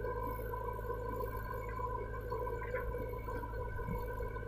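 Diesel engines of a backhoe loader and a farm tractor idling: a steady low rumble with a constant high whine above it and a few faint clicks.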